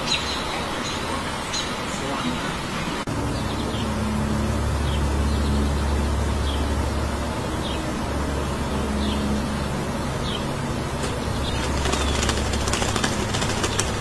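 Short bird chirps about once a second over a steady low rumble, then near the end a burst of rapid wing flutters and rustling as a parent bird works at the nest.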